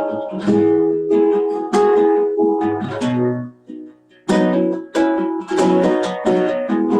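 Acoustic guitar strumming chords as the introduction to a song, pausing briefly about halfway through before the strumming resumes.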